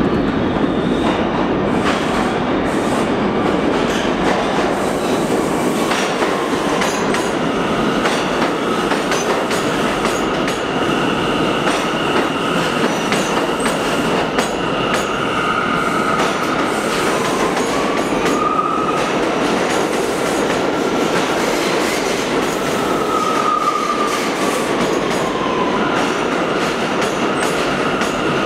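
A New York City subway train of R179 cars running through an underground station, with a steady loud rumble of wheels on rail and clicking over the joints. High ringing squeal-like tones sit over the rumble, and one of them glides up and back down about two-thirds of the way through.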